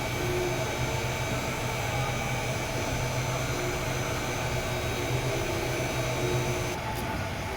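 A steady machine drone: a constant low hum and a few fixed tones under a rushing hiss, like a motor driving air. About a second before the end the hiss cuts off abruptly.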